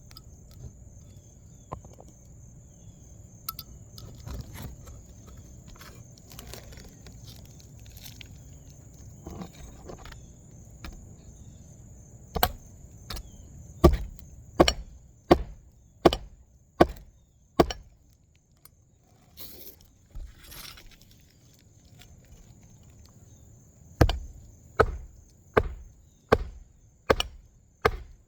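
Hammer blows during a roof shingle install, with quieter tapping and handling first. They come in two runs of sharp, evenly spaced strikes, about one and a half a second, the second run near the end.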